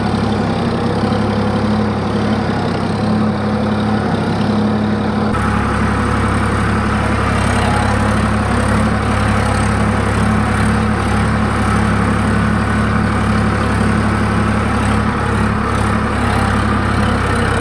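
Sonalika DI 47 tractor's diesel engine running steadily while the tractor pulls a nine-tyne cultivator through the soil. The sound changes slightly about five seconds in.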